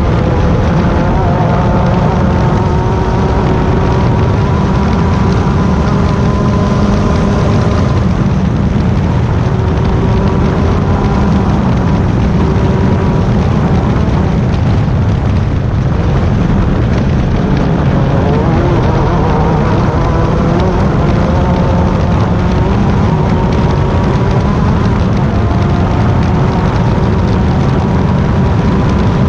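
Class 10 off-road race car running at speed: a steady engine note, its pitch wandering slightly, under a loud, constant low rumble of road and wind noise.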